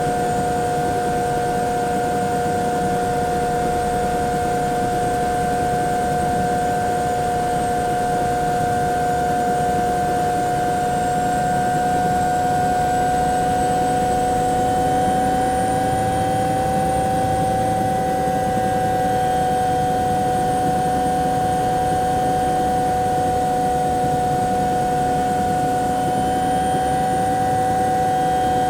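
Bell 212 helicopter's twin turboshaft engines and rotor idling, heard from inside the cabin: a steady high turbine whine over a low rumble. The whine rises slightly in pitch about halfway through, then holds.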